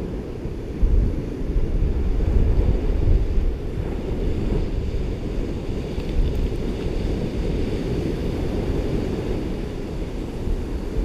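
Ocean surf breaking on a beach, heard as a steady low rumble with wind buffeting the microphone, a little louder about a second in.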